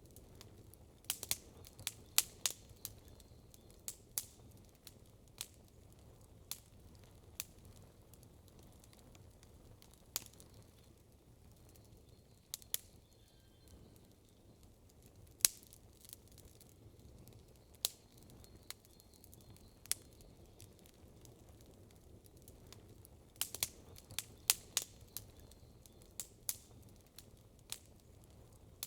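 Wood campfire crackling, with sharp pops scattered through and quick clusters of pops about a second in and again near the end.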